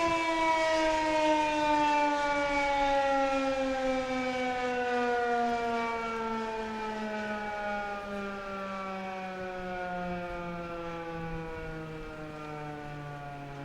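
Federal Signal 2001-130 electromechanical warning siren winding down at the end of its alert signal, its single tone falling slowly and steadily in pitch as it fades.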